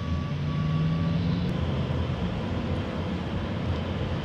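Steady low rumble and hiss of a moving car, heard from inside the cabin.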